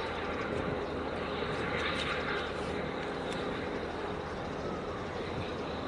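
Steady engine rumble under a haze of noise, swelling briefly about two seconds in.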